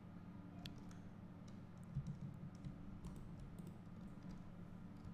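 Scattered faint clicks of a computer mouse and keyboard, irregular and spaced apart, over a low steady hum.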